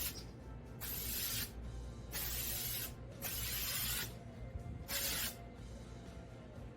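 Aerosol spray can of coating being sprayed in about five short bursts of hiss, each under a second long, with brief pauses between them.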